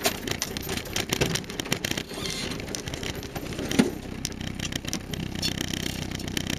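Land Rover Series III driving along a rough unsurfaced green lane: the engine running under a busy clatter of knocks and rattles, with one louder bump just under four seconds in.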